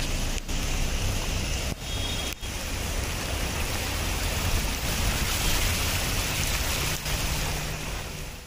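Heavy rain falling steadily on a flooded street, with a low rumble underneath.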